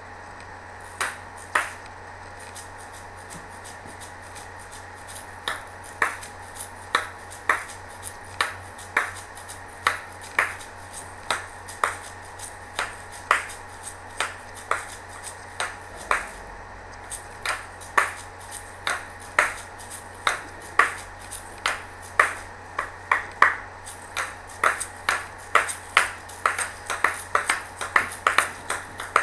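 Asalato (kashaka) being played: the two shells on each cord clack against each other in a rhythm. A few clacks at first, then a steady pattern of about two a second that quickens to three or four a second near the end.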